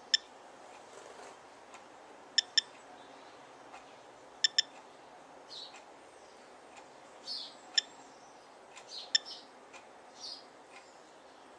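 SOEKS radiation dosimeter giving short, sharp, high-pitched clicks at irregular intervals, each one a single detected count at a normal background of about 0.2 µSv/h. Softer bird chirps come in between the clicks.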